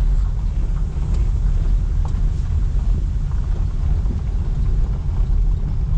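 Car driving over a dirt lot, heard from inside the cabin: a steady low rumble of tyres and engine, with a few faint ticks.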